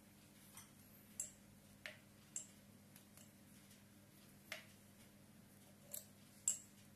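Light metallic clicks and taps as a brass water meter body and its loose parts are turned and handled by hand, a handful of short ticks spread through, with a sharper knock near the end.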